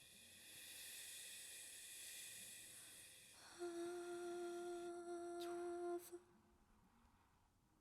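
A soprano's hummed note, held steady on one pitch for about two and a half seconds and cut off suddenly about six seconds in. Thin high steady tones sound at the start and fade out before the note ends.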